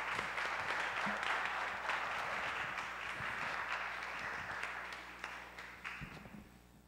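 Audience applause: many people clapping at once in a steady, dense patter that thins out and fades away near the end.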